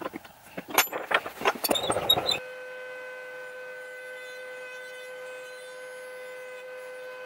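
Metal clinks and knocks of two open-end wrenches working the collet nut of a table-mounted router. After an abrupt cut about a third of the way in, a steady held tone with overtones takes over and runs unchanged.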